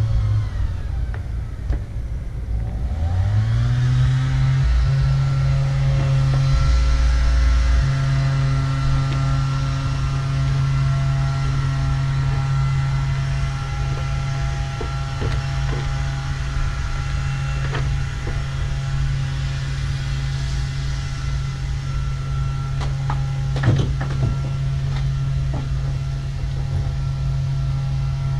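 A motor running steadily with a humming whine, its pitch rising as it speeds up about three seconds in and then holding, with a few light knocks later.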